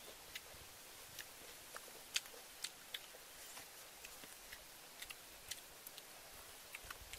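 Irregular little clicks and smacks of people chewing and eating fish with their fingers, over a faint steady hiss.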